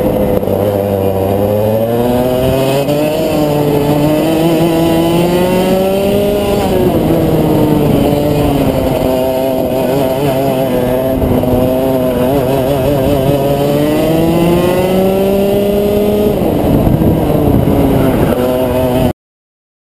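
Rotax Max 125 cc single-cylinder two-stroke kart engine running hard on the track, its revs climbing steadily and then dropping sharply for corners, twice, before climbing again. The sound cuts off suddenly near the end.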